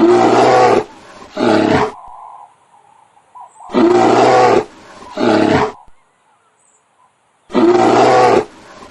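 A bear roaring three times, each time a long roar followed by a shorter one.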